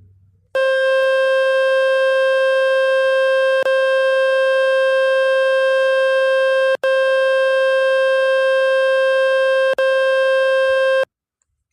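Speaker-cleaning tone from the Fix My Speaker website: a loud, steady, buzzy electronic tone that plays to shake dust and water out of a phone speaker. It starts about half a second in, breaks for an instant three times, about every three seconds, and cuts off abruptly near the end.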